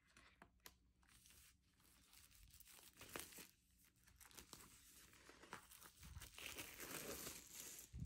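Faint crinkling and tearing of plastic shrink wrap being peeled off a vinyl record jacket, with scattered clicks and rustles. The crinkling grows louder over the last few seconds and ends in a soft thump.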